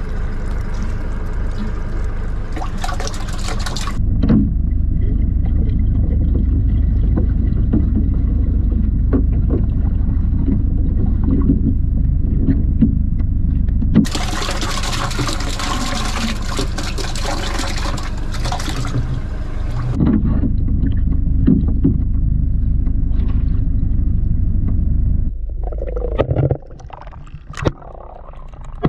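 Engine running steadily under a rushing wind-and-water noise, in several short clips joined by abrupt cuts; the rushing is strongest in two stretches, at the start and from about a third to two-thirds of the way through.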